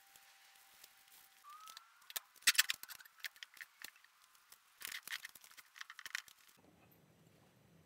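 Knocks, scrapes and clatter as a heavy swage block is lifted off a metal stand and set down on a wooden stump, the loudest clatter about two and a half seconds in and another burst about five seconds in. About six and a half seconds in the handling sounds stop abruptly, leaving a faint low hum.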